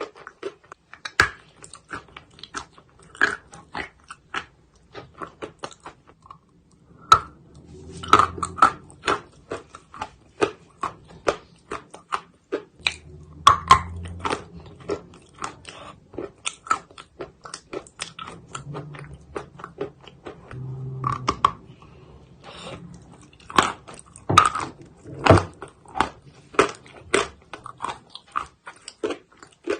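Close-up biting and chewing of a dry chalk bar: a steady run of sharp crunches, several a second, with louder clusters of bites about 7, 13 and 24 seconds in.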